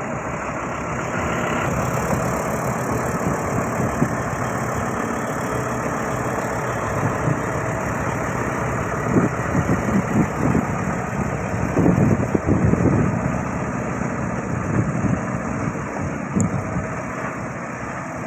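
A large vehicle's engine running steadily, with a cluster of irregular louder low thumps and rumbles about halfway through.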